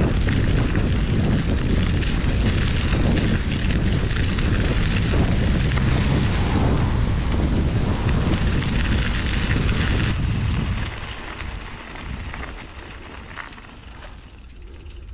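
Wind buffeting the microphone of a handlebar-mounted camera on a bicycle riding a dirt forest track, a loud steady rumble. It drops away sharply about eleven seconds in as the bike stops, leaving faint outdoor ambience.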